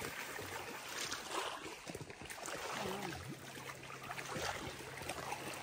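Lake water sloshing and splashing around a person's legs as he wades through the shallows, over small waves lapping. A faint steady low hum comes in about three seconds in.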